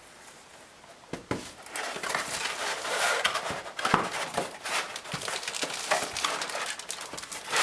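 Cardboard box and packaging being opened and handled: irregular rustling and crinkling with scattered knocks and taps, starting about a second in.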